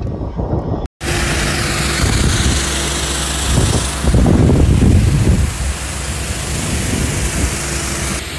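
Case IH Steiger 550 tractor running steadily as it pulls the air seeder, its engine hum heard under heavy wind noise on the microphone. The sound cuts out briefly about a second in, and the low rumble swells around the middle.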